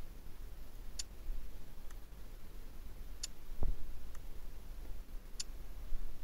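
Sharp clicks, about two seconds apart with fainter ticks between them, as chips are placed on an online roulette table with a mouse, and one low thud a little after the middle.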